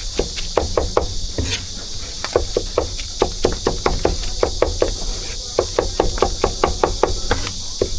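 Cleaver chopping braised pork for roujiamo on a wooden board: quick, even knocks about five a second, with brief pauses. A steady high hiss runs behind.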